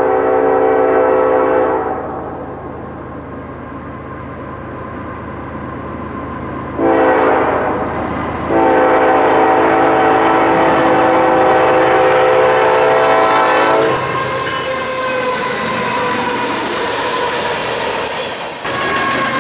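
BNSF diesel locomotive's multi-note air horn sounding a grade-crossing pattern: the end of one long blast, then a short blast and a long blast. Between and after the blasts the locomotive's engine runs and its wheels roll past on the rails.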